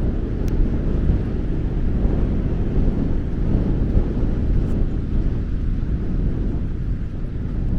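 Wind buffeting the microphone, a dense, uneven low rumble.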